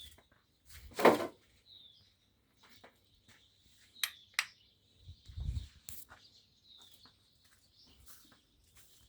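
A bird chirping over and over, short high chirps that drop slightly in pitch, about one a second. A loud short noise sounds about a second in and a low thud about five seconds later.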